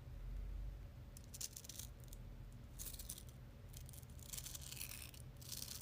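Tiny Speks magnetic balls rattling and clicking together in the hand, in several short, faint clusters of crisp clicks.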